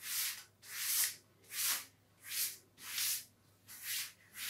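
Chalkboard eraser wiped in quick strokes across a blackboard, a hissing rub about seven times, roughly one stroke every 0.7 seconds.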